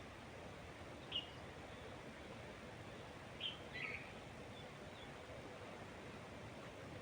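Faint, steady wind through trees with a few short, high bird chirps: one about a second in and two close together around the middle.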